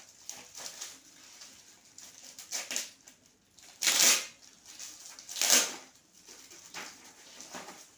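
Gift wrapping being rustled and torn open by hand, with a few louder rips about four and five and a half seconds in.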